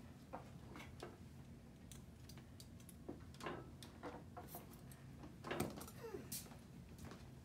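Scattered soft clicks and rustles of elastic athletic tape being cut with scissors and handled, with a louder rustle about five and a half seconds in.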